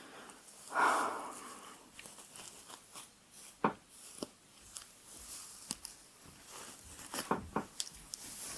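A hairbrush being pulled through hair close to the microphone: a soft swish about a second in, then scattered sharp crackles and snaps.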